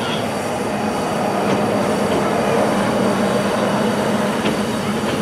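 Ex-Tokyu electric train car 7305 pulling slowly out of the station, with wheel and running noise on the rails and a steady low hum.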